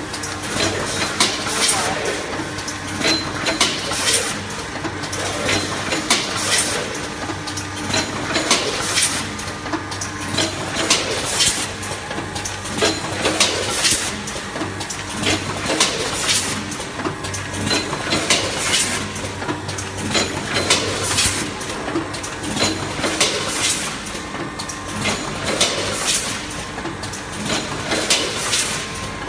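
Rotary premade-pouch packing machine running: a steady mechanical hum with repeated sharp clacks and short hisses from its pouch-handling stations, roughly one strong one every second with smaller ones between.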